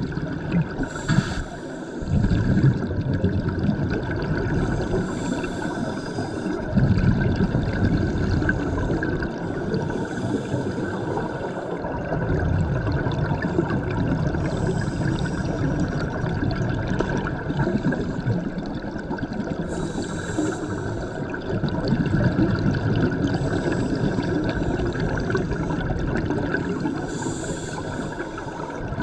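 Scuba diver breathing through a regulator underwater: a hiss about every five seconds, with a rumble of exhaled bubbles in between.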